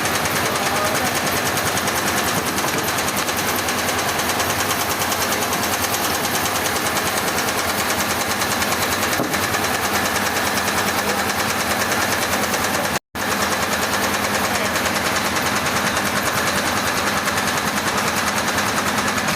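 Sawmill machinery running steadily, a loud even engine noise with a very fast pulse. It cuts out for an instant about thirteen seconds in.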